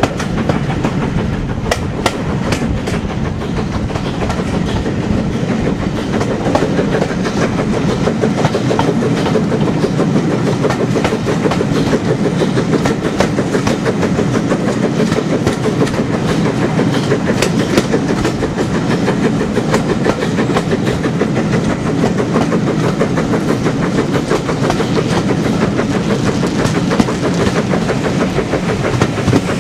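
Steam-hauled passenger train running steadily, heard from an open carriage window: a continuous rumble of carriage wheels on the track, with frequent sharp clicks and clatter over the rail joints.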